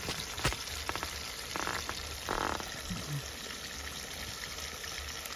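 Chicken pieces frying in hot oil in a steel wok: a steady sizzle with a few small pops.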